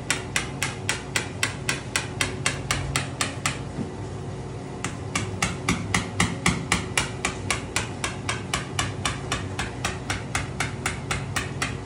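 Small wooden mallet tapping the top of a wooden dowel, driving the support down through all the tiers of a stacked cake. A quick, even run of wooden taps, about three to four a second, with a brief let-up about four seconds in, over a steady low hum.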